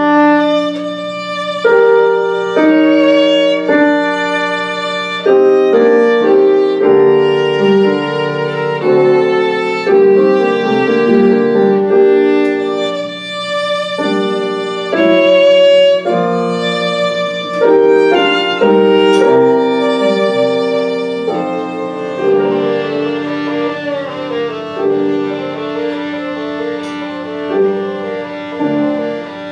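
Violin playing a melody of held notes over a sustained accompaniment; about two-thirds of the way through it turns to quicker, lighter notes.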